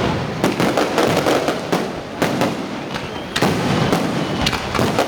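Aerial fireworks display: shells bursting in quick succession, a dense run of bangs heavier at a few moments.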